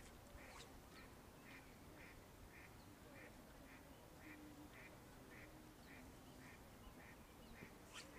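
Faint animal calls, short and evenly repeated about twice a second, with one short click near the end.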